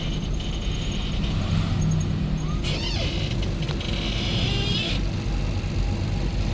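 Motor vehicle engine running steadily while driving, with one brief sharp noise a little under three seconds in.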